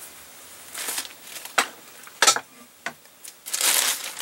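A few sharp knocks and clicks of things being handled on a bench, then, from about three and a half seconds in, a plastic bag crinkling as it is handled.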